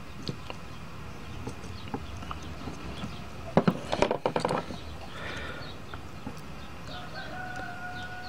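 Hand tools clicking and clattering on a wooden workbench as they are handled, put down and picked up, with a cluster of sharp knocks about halfway through. Near the end a bird calls in the background: one long steady note that drops in pitch at its close.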